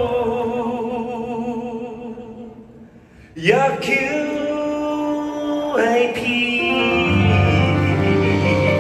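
Male singer performing live over the concert sound system, holding long notes with vibrato. The voice fades away, then a new sung phrase starts sharply about three and a half seconds in, and bass accompaniment comes in near the end.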